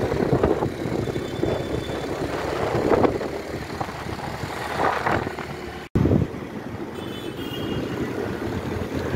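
Wind rushing over the microphone with vehicle and street-traffic noise while riding a two-wheeler through city streets, swelling in gusts; the sound cuts out suddenly for a moment about two-thirds of the way through.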